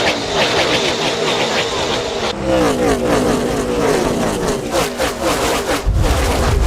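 Several NASCAR Gen 6 V8 stock cars running together, their engine notes overlapping and rising and falling in pitch as they rev and pass. The sound changes abruptly about two seconds in, and a heavy low rumble comes in near the end.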